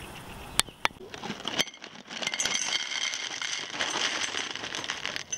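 Hands mixing pieces of food in a stainless steel bowl: dense crackling and rustling, starting about two seconds in after a few faint clicks.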